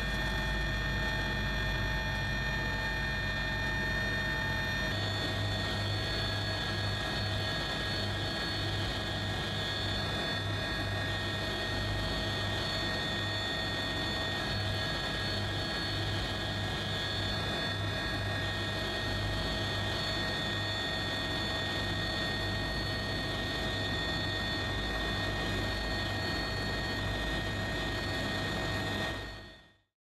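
Helicopter engine and rotor noise: a steady turbine whine over a pulsing low rotor throb. The sound shifts slightly about five seconds in and fades out at the very end.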